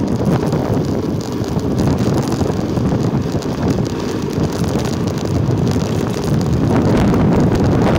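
Steady wind buffeting the microphone while travelling along a rough road, a dense low rush with no clear engine tone.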